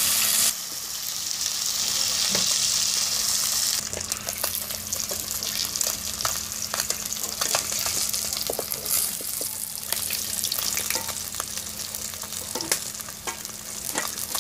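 Rohu fish pieces sizzling in hot oil in a kadai, with a metal spatula scraping and clicking against the pan as the pieces are turned and lifted out. The sizzle is loudest in the first few seconds; after that the spatula clicks come thick and fast.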